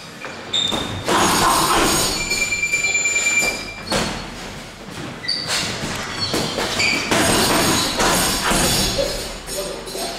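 Boxing sparring: gloves thudding against gloves and headguards in quick flurries, with footwork shuffling on the ring canvas and a few short squeaks.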